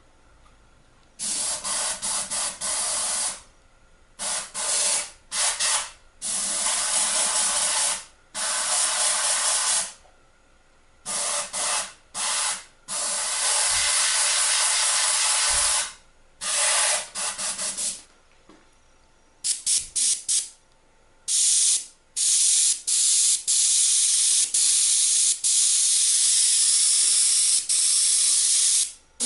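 Airbrush spraying paint in bursts of hiss as the trigger is pressed and released, some bursts long and some a quick run of short taps, then held on almost continuously over the last several seconds.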